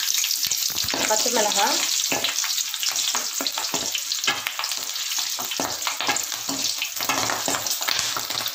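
Green chillies, ginger, mustard seeds and urad dal sizzling and crackling in hot oil in an aluminium kadai, with a perforated metal spoon stirring them: the tempering stage for mango pickle. Many sharp crackles sound over a steady sizzle.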